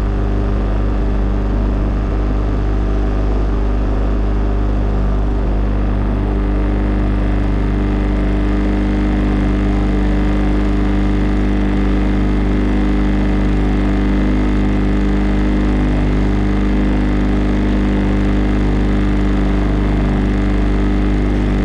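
Motorboat engine running at a steady, unchanging pitch.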